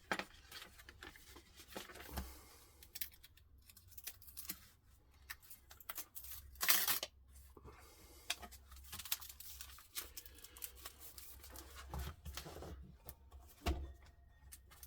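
Stiff, sticky pages of an old greasy book being peeled apart and turned, the paper crackling and rustling, with one louder tearing rustle about halfway through.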